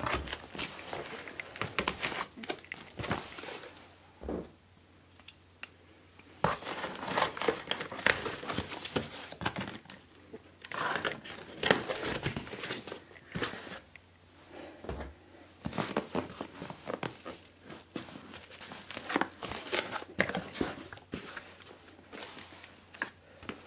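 Cardboard shipping box being opened by hand: packing tape tearing and cardboard flaps and packing crinkling and rustling in irregular bursts, with a short lull about four seconds in.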